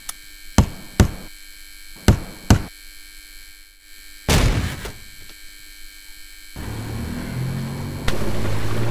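Sound effects for an animated logo: four sharp knocks in two quick pairs, then a short noisy burst. About two-thirds of the way through a low car-engine sound effect sets in, and it steps up louder near the end. A faint steady hum runs underneath.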